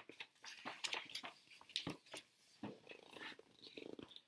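Paper pages of a picture book rustling and crinkling as they are handled and turned, in short uneven crackles, with a quick flutter of soft ticks near the end.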